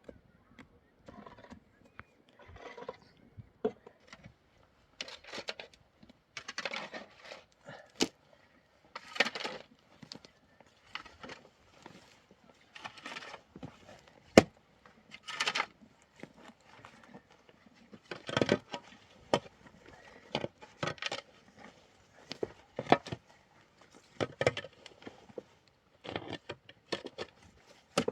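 Irregular knocks, clicks and short scraping or rustling sounds of things being handled, with no steady rhythm.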